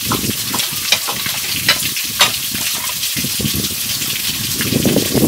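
People chewing and smacking their lips as they eat grilled pig intestine by hand, with sharp wet mouth clicks now and then, over a steady hiss.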